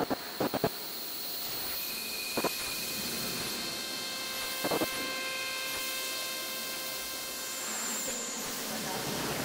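A steady hum and hiss with several thin high tones held throughout, broken by a few short soft knocks: a quick cluster about half a second in, one about two and a half seconds in and another about five seconds in.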